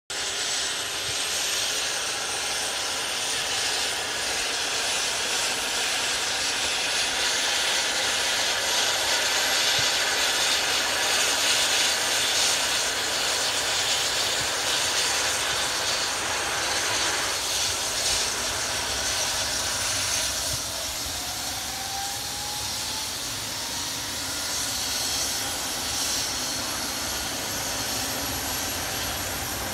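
Rescue helicopter's turbine engines running, a steady rushing noise with a high thin whine that slowly rises in pitch; the noise eases off somewhat about two-thirds of the way through.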